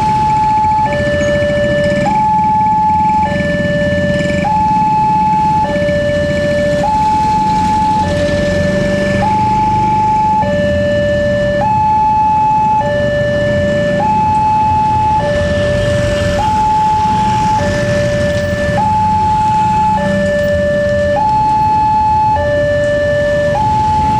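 Railway level-crossing warning alarm from a horn loudspeaker: a steady electronic two-tone signal, a higher and a lower tone alternating about every second, sounding while the barriers are down for an approaching train. Engine noise from waiting cars and motorbikes runs underneath.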